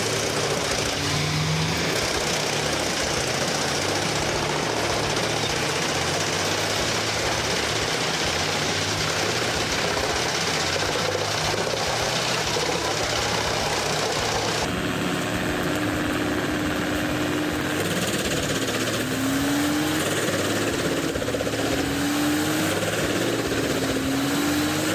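Wood chipper running, its engine and shredding noise dense and steady. After an abrupt change about 15 seconds in, the engine's pitch wavers up and down.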